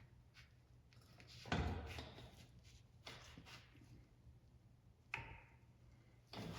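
Quiet handling noises: a single clunk about one and a half seconds in, then a few lighter knocks and clicks, as parts are moved during an axle teardown.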